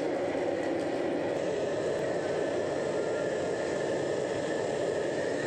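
Steady rushing noise of a forced-air burner firing inside a pellet-mill die ring, heating the die.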